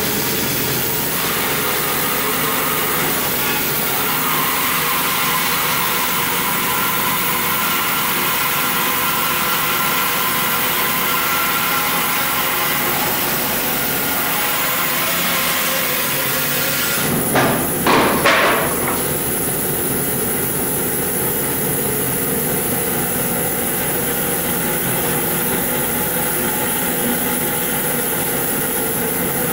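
Band saw running and cutting into a log, a steady loud whir with faint humming tones. A quick cluster of three or four loud knocks a little past halfway.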